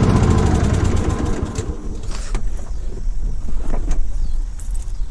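Cub Cadet LTX 1045 hydrostatic riding mower's engine dropping from high throttle to a lower, rougher idle over the first couple of seconds, with a few short clunks and rattles about two and four seconds in.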